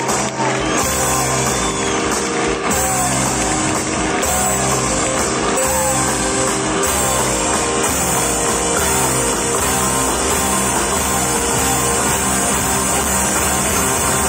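Live rock band playing through a PA system, with electric and acoustic guitars. The music is loud and steady throughout.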